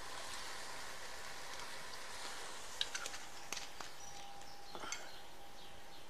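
Pineau des Charentes poured into a stainless steel pot of simmering veal escalopes and mushrooms: a faint steady hiss with a few light clicks.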